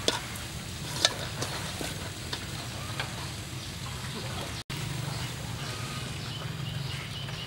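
Wood fire burning in a clay stove under a kettle: a steady hiss with scattered sharp crackling pops.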